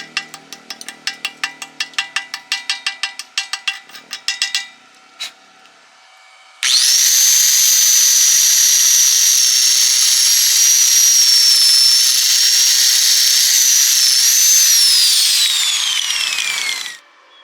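Rapid metal tapping, about five light strikes a second, for the first few seconds. Then a high-speed angle grinder runs with a loud, steady high whine, and near the end it is switched off and its whine falls in pitch as it winds down.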